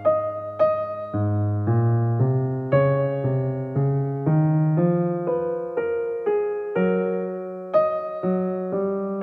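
Background piano music, a gentle melody of notes struck about twice a second, each fading away, over a slowly changing bass line.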